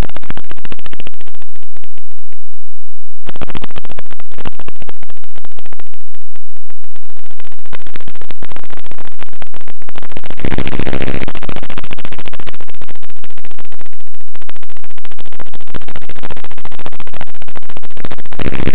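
Harsh electronic noise music at full loudness: a dense, distorted wall of crackling and clicking, with a brief dropout about two seconds in and a buzzing tone about eleven seconds in.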